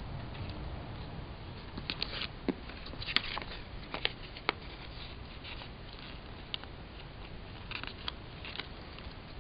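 Paper sticker sheets and planner pages being handled: light rustling and scattered sharp clicks, clustered about two to four and a half seconds in and again near eight seconds, over a steady low hum.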